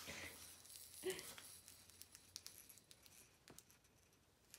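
Near silence in a small room: faint rustling and light clicks from a toddler handling the plastic balls and hanging toys of a baby play gym, with one brief soft sound about a second in.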